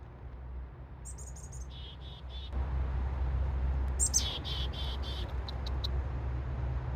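Chickadee giving its chick-a-dee-dee call twice, each a quick run of high notes followed by a few lower 'dee' notes, then a few short chips. Wind rumbles on the microphone, growing louder about two and a half seconds in.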